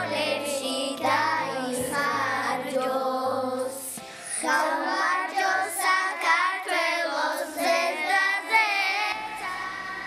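A group of young children singing together over a low instrumental accompaniment, with a brief lull a little before the middle.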